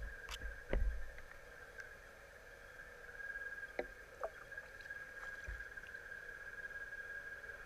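Muffled underwater sound picked up by a submerged camera: a steady faint whine with a few scattered clicks and knocks, the loudest a thud just under a second in.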